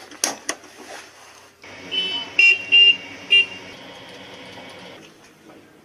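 A few switch clicks in the driver's compartment of a tracked armoured vehicle as the battery master switch is turned on, then a steady electrical hum starts and the vehicle's horn gives three short toots.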